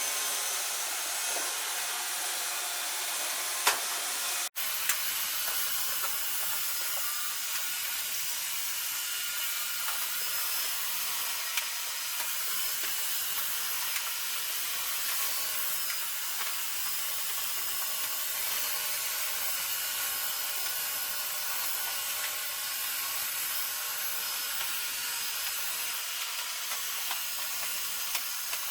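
Two Roomba robot vacuums running, a steady hissing whir from their vacuum motors and brushes, with a few brief knocks.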